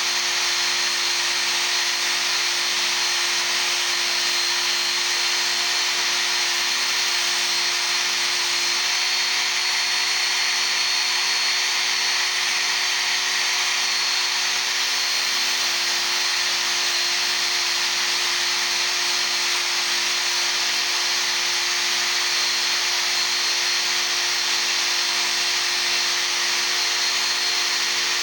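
Work Sharp Ken Onion Edition electric belt sharpener running steadily, its abrasive belt grinding the steel of a chisel with an even, continuous hiss.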